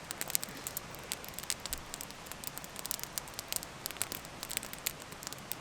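Wood campfire crackling: irregular sharp pops and snaps over a faint steady hiss.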